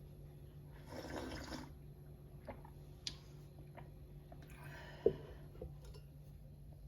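Small kitchen handling sounds over a low steady hum: a brief rush of noise about a second in, a few light taps, and one sharper clink with a short ring about five seconds in.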